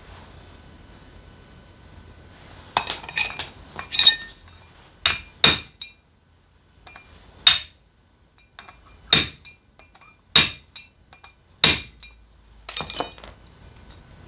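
Sharp metallic clinks of hand tools and metal engine parts: a quick cluster, then about six separate ringing strikes spaced a second or two apart, and another short cluster near the end.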